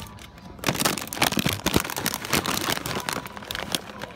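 Plastic bag of nacho chips crinkling and crackling as it is handled close up, a dense run of crackles starting about half a second in.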